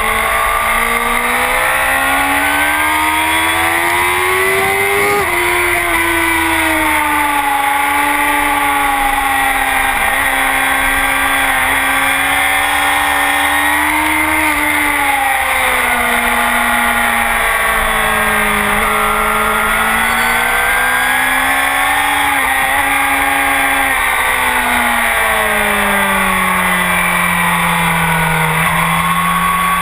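Honda CBR1000RR's inline-four engine running hard through a full Akrapovic exhaust. The revs climb and fall again and again, with a sharp drop about five seconds in as it shifts gear, and a slow fall near the end.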